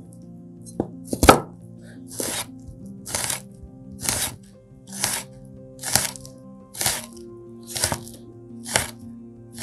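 Chef's knife slicing garlic cloves on a wooden cutting board: a crisp knock of the blade on the board about once a second, steady and even.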